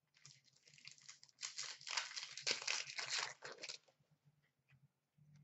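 A 15-16 Upper Deck O-Pee-Chee Platinum hockey card pack wrapper being torn open and crinkled by hand. The crackling builds from faint to a busy stretch in the middle and stops a little before the end.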